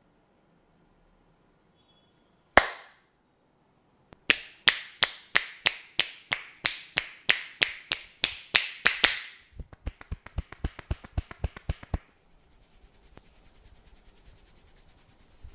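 Hand-percussion massage: one sharp crack, then a quick, even run of sharp claps or slaps, about three a second, which turn quieter and quicker and then give way to soft rubbing.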